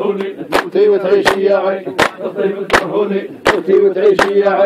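Men singing a shtawi folk song, voices holding long, wavering notes, over sharp hand claps coming roughly one to two times a second.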